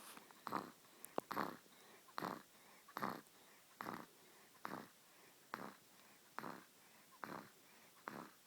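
A seven-week-old baby snoring faintly in her sleep: short, regular breaths a little under a second apart. A small sharp click about a second in.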